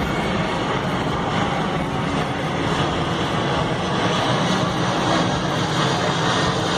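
Steady noise of an aircraft's engines in flight, growing a little louder over the last few seconds.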